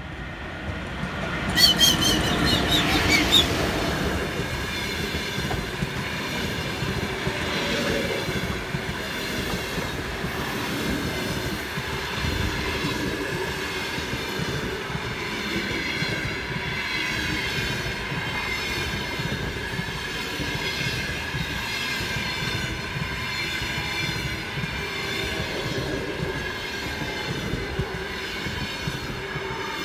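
ChS7 electric locomotive passing close, with a burst of sharp wheel clatter about two seconds in. It is followed by the steady rumble and clatter of its passenger coaches rolling by, with a steady high ringing from the wheels over the rumble.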